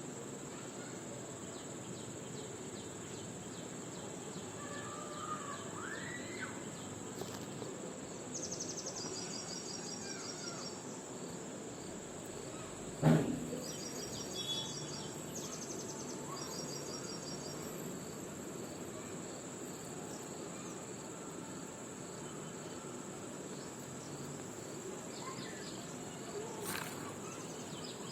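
Outdoor insect chorus: a steady high-pitched drone with bursts of pulsed trilling over it, and a few short bird calls. A single sharp knock about halfway through is the loudest sound.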